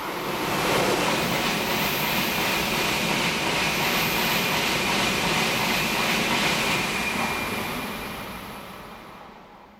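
N700-series Tokaido Shinkansen train passing at speed: a loud rush of wheels on rail and air with a faint high whine. It builds within about a second as the nose arrives, holds steady as the cars go by, and fades away over the last few seconds once the tail has passed.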